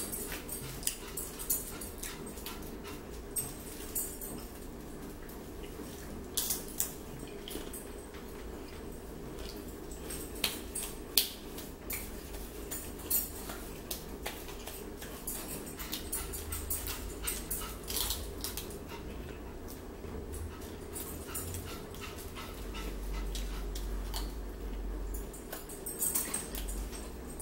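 A dog whining continuously, under scattered small clicks and smacks of people eating at a table.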